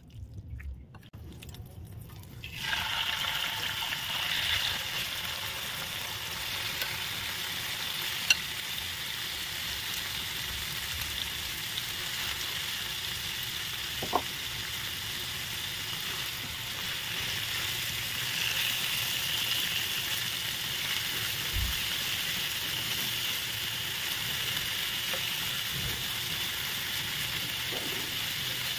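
Marinated beef bulgogi sizzling in an oiled frying pan: a steady frying hiss that starts about two and a half seconds in and keeps on, with a few sharp clicks along the way.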